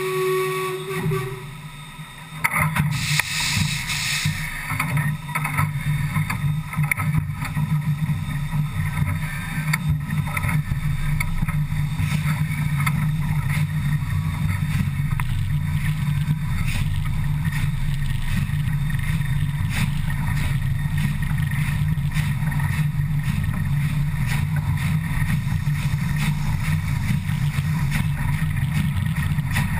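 Running gear of the Škoda-built ČSD class 475.1 steam locomotive at about 100 km/h, heard right at the driving wheels: a steady low rumble with dense clatter from wheels on rail and the coupling rods. A brief loud hiss comes about three seconds in.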